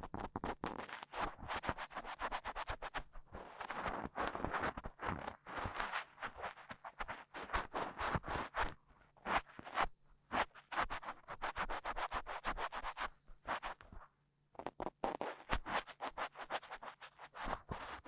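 Dry cotton swab scratching and rubbing in an ear, ASMR ear cleaning, in quick strokes that swell and fade, with a brief pause about 14 seconds in.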